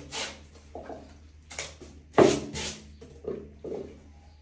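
A pet baby monkey making a string of short calls, about seven in a few seconds, the loudest a little over two seconds in.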